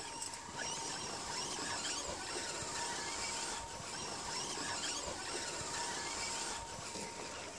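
Electric motor and gear train of a radio-controlled scale rock crawler whining, its pitch wavering with the throttle, as the truck climbs a steep slope of loose dirt and gravel.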